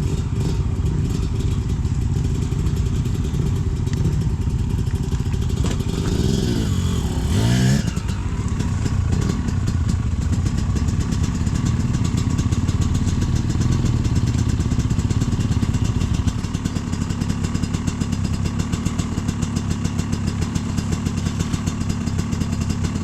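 Enduro dirt bike engine running under way, revving up and back down about seven seconds in, then holding a steadier note, a little quieter in the later part.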